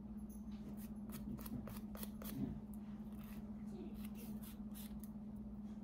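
Nail file scraping across a fingernail in quick, irregular scratching strokes, sanding off leftover nail glue with the medium-grit side. A steady low hum runs underneath.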